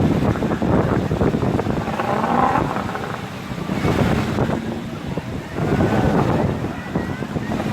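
Wind buffeting the microphone over a steady low rumble and rushing water, as on a boat crossing open sea.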